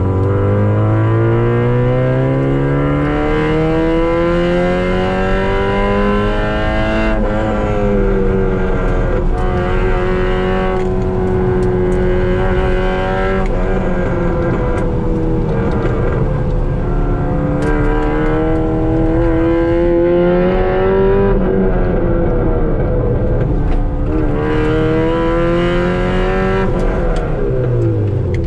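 Car engine driven hard on a track lap, heard from inside the cabin. Its revs climb for several seconds, drop sharply about seven seconds in at a gear change, then rise and fall twice more with throttle and shifts, falling steeply near the end.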